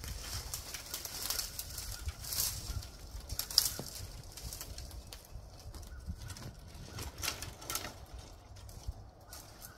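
Dry, leafless tree limbs rustling and knocking together as they are laid onto a brush pile, with footsteps crunching in dry fallen leaves. One sharp crack stands out about three and a half seconds in.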